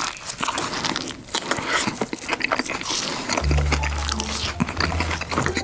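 A person chewing a mouthful of crispy fried food close to the microphone: many quick, irregular crunches.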